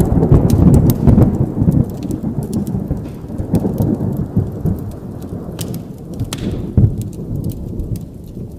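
A thunderclap sound effect: loud rumbling thunder that slowly dies away, with rain and scattered crackles over it.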